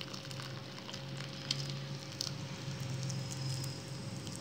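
Lime-curdled milk, whey and soft paneer curds, poured from a steel bowl into a cloth-lined strainer, pattering and trickling softly into the cloth as the whey is drained off.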